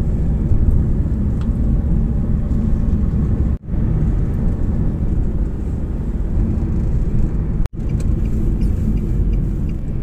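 Steady road and engine rumble heard from inside a moving car. It cuts out abruptly for a moment twice, about a third of the way in and again about three quarters of the way in.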